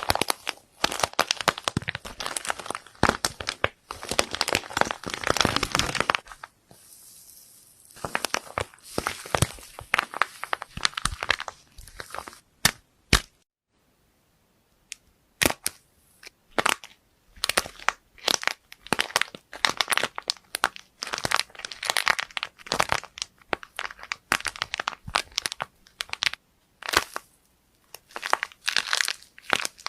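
Dense crunching and crackling, many small sharp pops and cracks close together, as a crunchy material is squeezed and crushed by hand. The crackling breaks off briefly about halfway through, then carries on.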